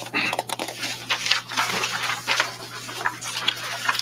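Paper rustling and shuffling close to the table microphones, a run of irregular crackles and scrapes, over a steady low electrical hum.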